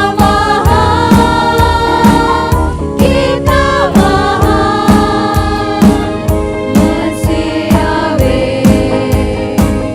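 Worship music: a group singing a gospel song over a band, with drum hits keeping a steady beat of about two a second.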